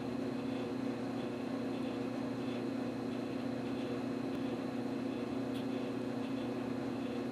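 Steady machine hum: a strong low drone with a faint high whine above it.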